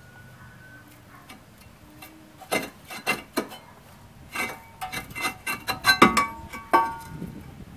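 Rusty cast-iron rear brake rotor being worked loose and pulled off the wheel hub: a run of sharp metal clanks, each with a short ringing tone, starting a couple of seconds in and loudest toward the end.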